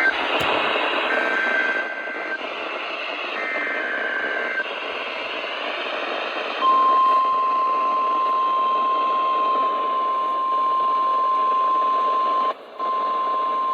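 NOAA Weather Radio test signal received over static. It starts with three short warbling SAME data bursts about a second apart, then about six and a half seconds in the steady 1050 Hz weather radio warning alarm tone begins. The whole signal drops out briefly near the end.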